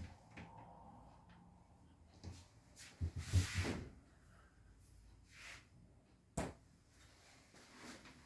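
Kitchen cabinet doors and drawers being opened and closed: a few soft knocks, a longer sliding rush with low thuds about three seconds in, and a sharp click a little after six seconds.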